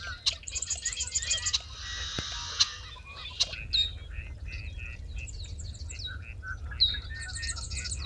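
Marsh birds singing at dawn: a chorus of overlapping songs and calls, with one high, rapid trilled song that repeats about every three seconds over a low steady rumble.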